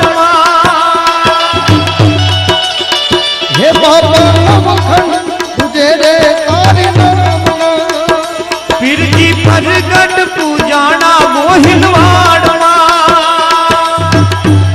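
Indian folk devotional music played live: a lead melody of quick, ornamented phrases over tabla-style hand drumming, with a deep bass beat about every two seconds.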